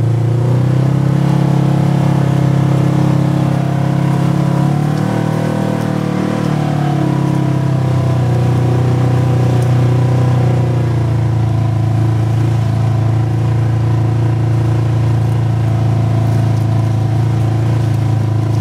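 Polaris RZR Trail Premium side-by-side's twin-cylinder engine running steadily while driving along a dirt trail, heard from the cab. The engine pitch wavers up and back down about a third of the way through, then holds steady.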